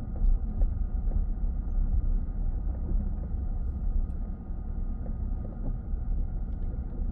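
Steady low road and engine rumble of a minivan driving, heard from inside the cabin.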